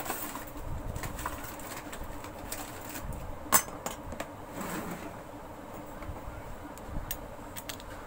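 Small clicks and knocks of metal parts handled on a workbench, with one sharp metallic clack about three and a half seconds in, as a mixer-grinder jar's blade assembly is set down.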